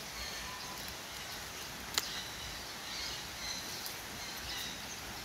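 Faint outdoor ambience: a steady hiss with scattered short, high chirps, and one sharp click about two seconds in.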